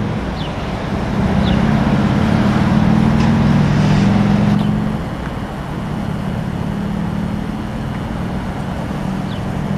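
Road traffic: motor vehicles passing with a steady engine hum, which swells for a few seconds near the start and then eases to a steadier, lower drone.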